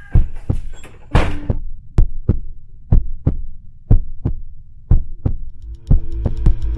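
Heartbeat sound effect: slow paired lub-dub thumps about once a second. There is a brief rushing burst about a second in, and music with steady held tones comes in near the end.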